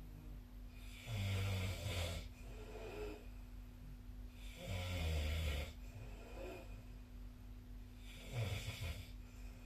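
A sleeping person snoring, three snores each about a second long, roughly three and a half seconds apart.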